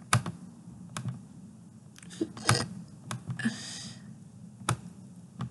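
Scattered computer mouse and keyboard clicks, single sharp clicks at irregular intervals, with a brief soft hiss about three and a half seconds in.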